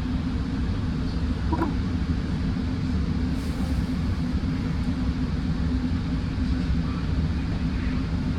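Steady low rumble heard from inside a Metrolink passenger train, with a short faint squeal about one and a half seconds in.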